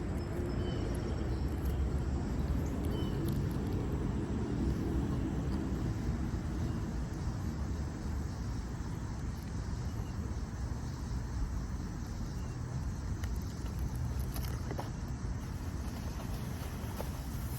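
Road traffic, a steady low rumble, with a few faint high chirps in the first few seconds.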